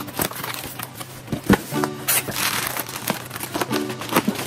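Packaging crinkling and rustling as a box is opened by hand, with scattered clicks and one sharp knock about one and a half seconds in, over background music with a short chord that repeats about every two seconds.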